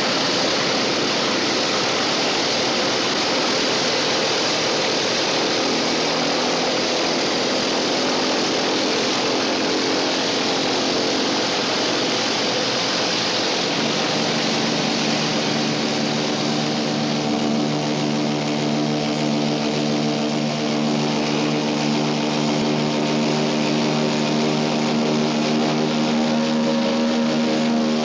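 Douglas DC-3's twin radial engines and propellers heard from inside the cabin: a steady, loud rushing drone. About halfway through, a strong, even engine hum with several steady tones comes up under the rush.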